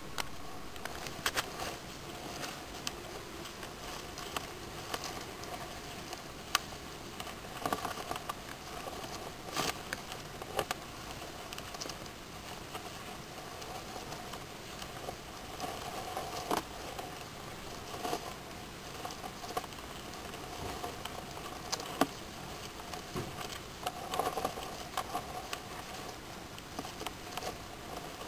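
Irregular light clicks and taps, a few every second: hermit crab shells knocking together and their legs scrabbling on aquarium gravel as the crabs grapple. A steady faint hiss runs underneath.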